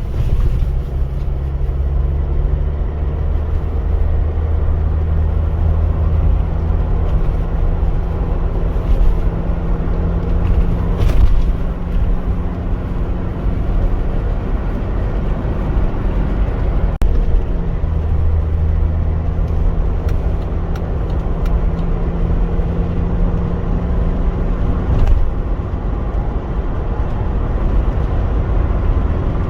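A 2010 Jeep Wrangler JK's common-rail diesel engine running after repair: a steady hum whose pitch shifts a few times, over a heavy low rumble of vehicle noise.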